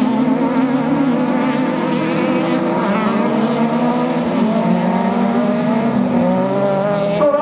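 Engines of several autocross buggies racing together on a dirt track, running hard with their pitch rising and falling as the drivers work the throttle.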